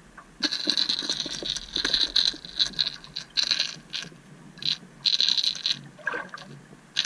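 Underwater noise picked up by a submerged camera: irregular bursts of hissing, crackling water noise with scattered clicks, as a jerkbait is worked near the surface.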